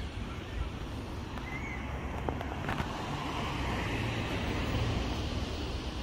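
Road traffic: the steady tyre and engine noise of cars driving past on a multi-lane road, swelling a little a few seconds in as a car goes by.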